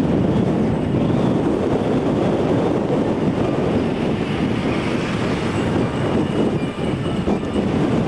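Wind buffeting the camcorder microphone: a loud, steady low rumble that covers everything else.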